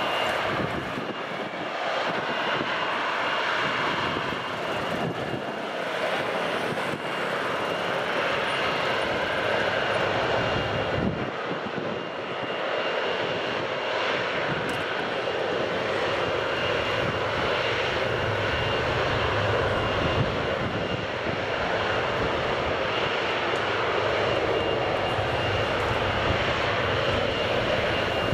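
Boeing 777-200ER's twin jet engines running at taxi power as the airliner rolls slowly on the taxiway: a steady jet rumble and rush with a thin, steady high whine.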